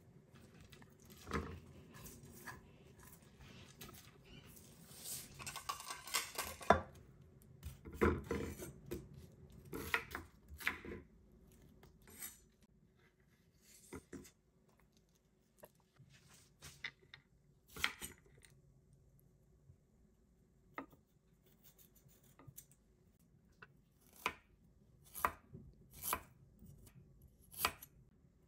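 Kitchen prep on a wooden cutting board: scattered sharp knocks and taps of a chef's knife and a plate on the board, with a run of quick knife strokes slicing fresh ginger near the end.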